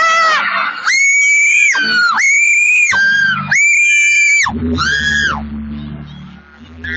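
Fans screaming at a high pitch: four long shrieks of about a second each from a voice close by. They die away about five seconds in, leaving a low steady hum.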